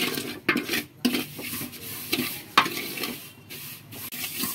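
Wooden spatula stirring and scraping vermicelli as it fries in ghee in a metal pot, in irregular strokes with a sharper knock about halfway through.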